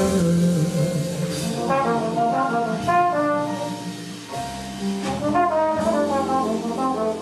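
Trombone playing a slow melodic jazz line over the band's accompaniment, which includes piano and guitar.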